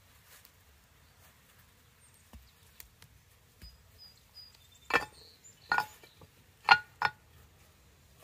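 Concrete blocks knocking together as a cinder block is set across the firebox opening of a cinder-block sap boiler: a few light clicks, then four sharp knocks in about two seconds, the loudest near the end.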